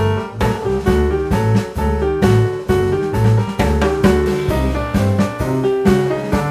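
Background music: piano with a steady drum beat, about two beats a second, in a light jazz style.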